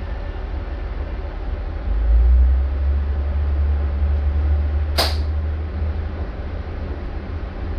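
Diesel-hydraulic Hunter railcar heard from inside the passenger saloon while travelling: a steady low engine and running rumble that swells louder about two seconds in and eases after a few seconds. A single sharp clunk comes about five seconds in.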